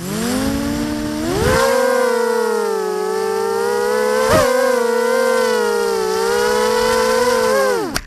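Brushless motors and propellers of a ZMR250 250-size quadcopter, heard from its onboard camera: a steady pitched whine that spools up, rises in pitch about a second in as the throttle lifts it off, and holds through the flight. There is a sharp knock about four seconds in. Near the end the whine cuts off suddenly as the quad crashes and tumbles into the grass.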